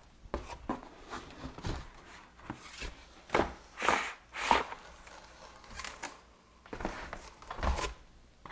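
Cardboard box and packing being handled as chainsaw parts are lifted out: irregular rustles, scrapes and light knocks. The loudest come a few seconds in and again near the end.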